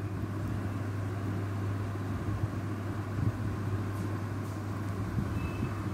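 Steady low hum under an even hiss of room noise.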